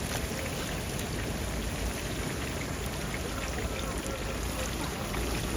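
Whole chickens deep-frying in oil in a cast-iron gamasot cauldron: a steady, dense sizzle full of fine crackles.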